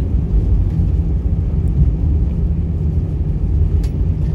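Steady low rumble inside the cabin of an Airbus A319 on the ground after landing: engine and rolling noise, with a faint tick near the end.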